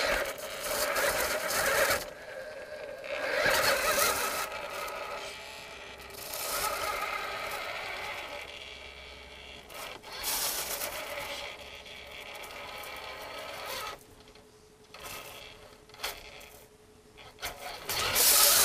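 A 1988 Radio Shack Toyota Hilux Super 4x4 radio-controlled truck's electric drive motor and gearbox whirring in spurts as the throttle is worked, with tyres rubbing and scraping on a wooden plank. It is loudest near the end, as the truck comes back close.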